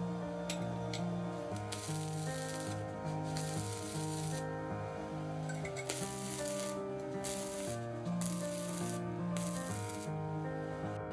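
Background music with a steady bass line that steps from note to note about once a second, over a crackling hiss that comes and goes in spells of about a second, the sound of arc welding.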